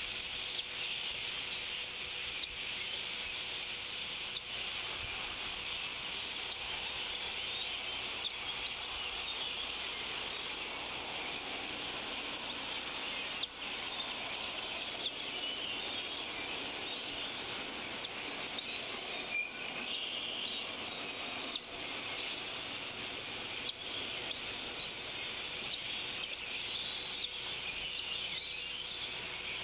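Songbirds singing in woodland, several at once, with short repeated rising and falling phrases over a steady high hiss.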